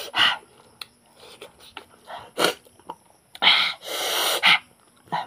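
Several short, breathy puffs and exhales from a man's mouth while eating, the longest a hissing blow through pursed lips about four seconds in.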